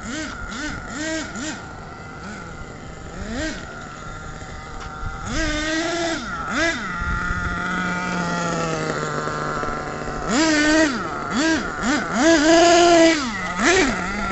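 RC monster truck's motor revving up and down in many short throttle bursts, with a steadier run in the middle; the bursts are loudest in the last few seconds.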